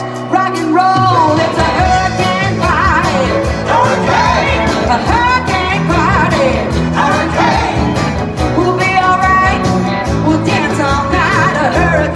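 A live rock band playing with singing, heard loud from the audience in a club room. The band has accordion, keyboard, electric and acoustic guitars, bass and drums. The bass and drums come in about a second in under the singing.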